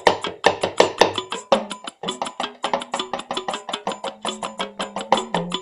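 Hourglass talking drum beaten in a fast, steady run of strokes, its pitch stepping up and down as the tension cords are squeezed.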